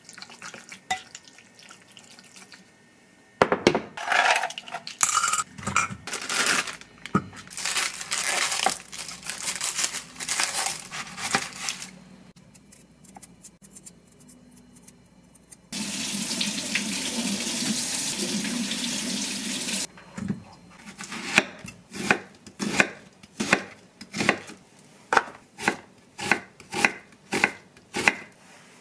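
Papery onion skin crackling as an onion is peeled with a knife. Then a tap runs steadily for about four seconds, and near the end a knife slices through the onion onto a wooden cutting board in a steady rhythm of about two cuts a second.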